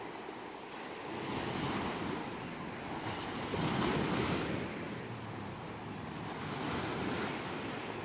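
Small waves breaking at the shoreline and washing up over sand, the surf swelling three times, loudest about halfway through as a wave breaks.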